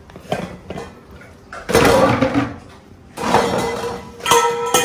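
Stainless steel dog bowl scraping and clattering on a tile floor while a dog eats raw chicken from it, in two bouts: about two seconds in, and again over the last second and a half.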